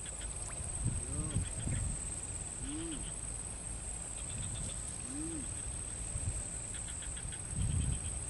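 Marsh wildlife: a steady high-pitched insect drone, trains of rapid clicking, and a short rising-and-falling animal call repeated about four times. A low rumble swells near the end.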